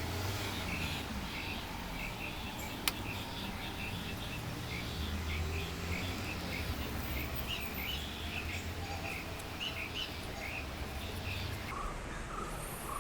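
A bird chirping over and over in short, high notes, with a low background rumble. A single sharp click sounds about three seconds in.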